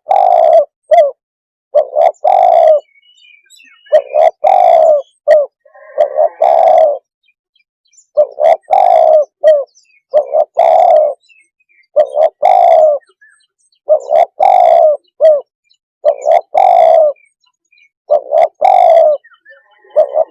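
Spotted dove cooing, the decoy call that hunters use to lure wild spotted doves. Each loud phrase is a short coo, a longer coo and a clipped final note, and it repeats about every two seconds.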